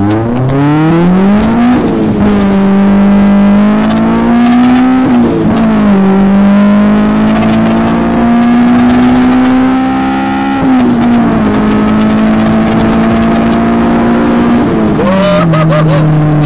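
Honda VTEC four-cylinder, a B18C head on a B20 bottom end, heard from inside the car's cabin at full-throttle acceleration. Revs climb and then drop at upshifts about 2, 5 and 11 seconds in. The pitch falls again near the end.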